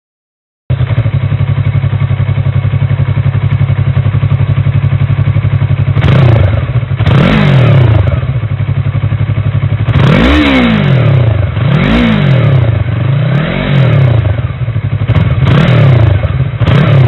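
Yamaha R3's 321 cc parallel-twin engine running through its stock exhaust muffler: a steady idle for about five seconds, then a series of about six short throttle blips, the revs rising and falling each time.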